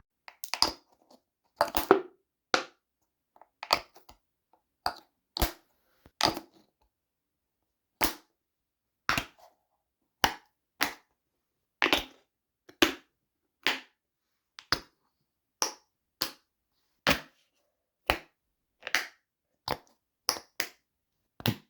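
Plastic flip-top caps of shampoo bottles being snapped open and shut, a long series of sharp clicks about one or two a second, some in quick pairs.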